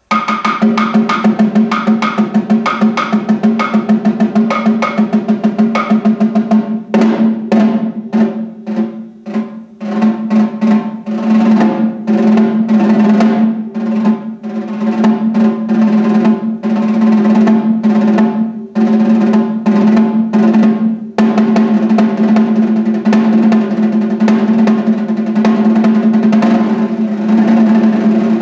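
Solo concert snare drum played with sticks: fast, dense strokes over a steady low ring from the drum. About seven seconds in the playing breaks into separate accented hits with short gaps, then from about eleven seconds it runs into long sustained rolls.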